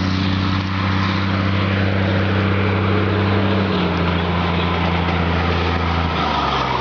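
Motor vehicle engine running steadily under way, with a low, even engine note that shifts down slightly about four seconds in and again about six seconds in.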